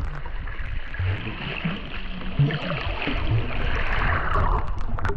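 Sea surf washing up the beach: a steady hiss of breaking water that swells to its fullest in the middle and eases off near the end, over a low rumble.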